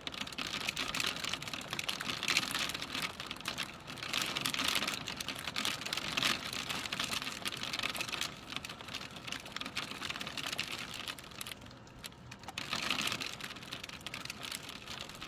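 Raindrops pattering densely on a surface, a continuous spatter of small drop impacts that swells and eases, thinning briefly about twelve seconds in.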